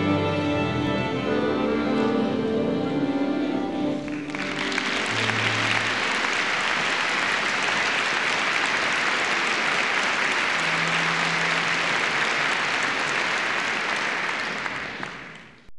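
Orchestral music for about the first four seconds, then an audience applauding steadily, fading out near the end.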